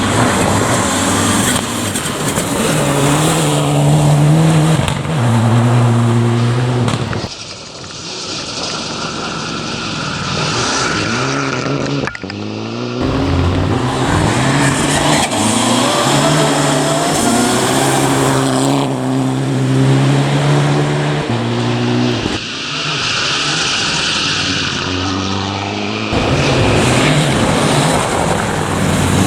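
Rally car engines accelerating hard, the pitch climbing and dropping back at each gear change as the cars pass, in several short clips cut one after another.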